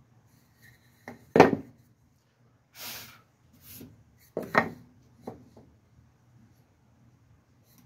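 Pieces of 2x4 lumber knocking and sliding in a wooden cutting jig as they are handled: a few sharp wooden knocks, the loudest about one and a half seconds in and again around four and a half seconds, with a short scrape of wood on wood around three seconds in.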